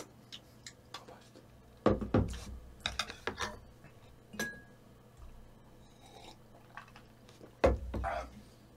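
A spoon clinking and scraping against a bowl while mixing rice with stir-fried pork and soybean stew, with two heavier knocks, about two seconds in and near the end.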